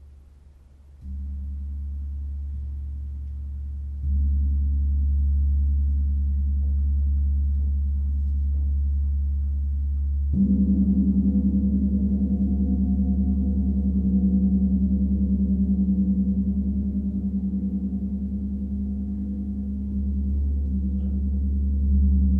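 Deep, sustained gong tones with a slow pulsing beat, building in layers. The drone grows louder about a second in and again at about four seconds. A stroke at about ten seconds adds a louder, richer ring that holds steady.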